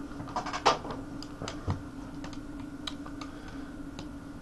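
Irregular light clicks and taps of oscilloscope probe and leads being handled on a workbench, over a steady hum.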